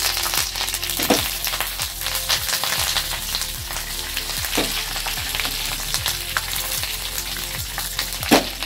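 Curry leaves, dried red chillies and black mustard seeds frying in hot oil for a tempering, with a steady sizzle full of sharp crackles and pops. A louder knock comes near the end.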